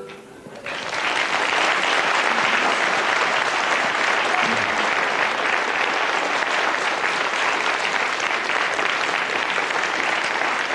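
Studio audience applauding, starting about a second in after a sung song ends and holding steady.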